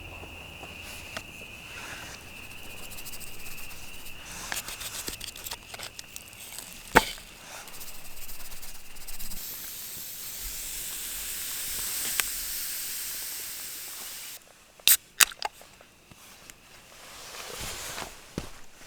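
Campfire hissing steadily, with scattered sharp pops and crackles, the loudest a single crack about seven seconds in and a quick pair about fifteen seconds in. The hiss is typical of damp wood giving off steam.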